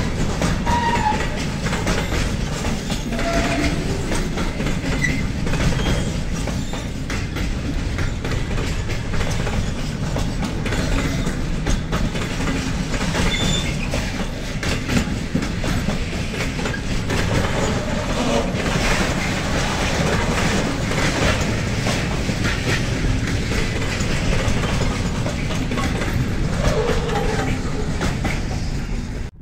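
Freight train rolling past, its wagon wheels clattering steadily over the rail joints, with a few brief high squeaks from the wheels.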